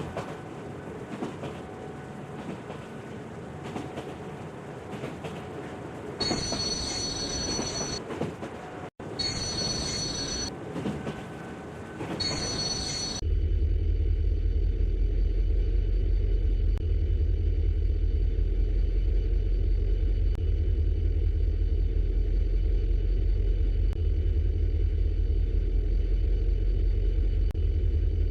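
Train running: a rattling rumble with three short high squeals in the first half. About thirteen seconds in it gives way suddenly to a louder, steady deep rumble.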